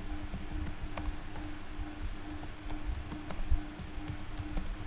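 Typing on a computer keyboard: irregular key clicks over a faint steady hum.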